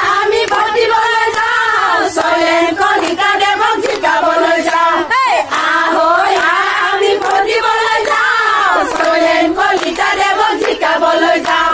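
A crowd of women chanting slogans in unison, in long sung-out phrases, with hand clapping throughout.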